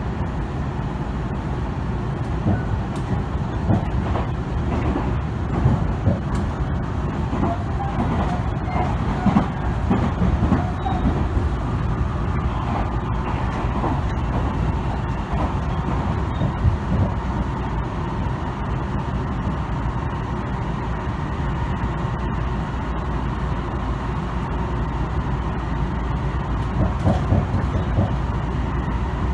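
Tobu Tojo Line express train running at speed, heard inside the passenger car: a steady low rumble of wheels on rail with a faint steady whine and scattered light knocks.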